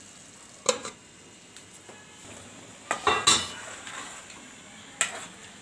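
A metal spatula clanking against the side of an aluminium pan while stirring thick cooked dal: one sharp clank, a cluster of clanks midway, and another near the end.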